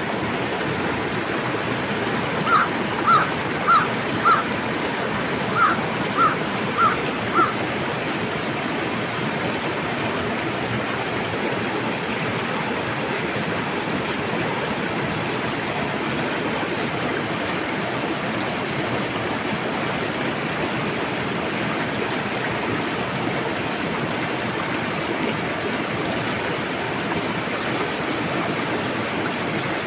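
River water rushing steadily. A few seconds in, a bird calls in two runs of four short, evenly spaced notes.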